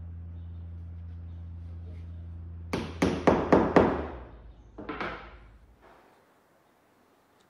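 A steady low hum, then a quick run of about five light taps from a small hammer driving glued wooden bungs into their holes in a wooden boat's rail, with one more tap a second later.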